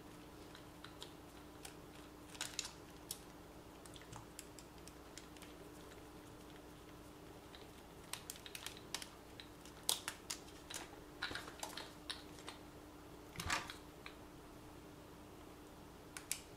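Small plastic and metal clicks and taps from handling the parts and tiny screws of a toy-grade RC car as it is taken apart, scattered at first, then a busy run of clicks about halfway through and a louder knock near the end.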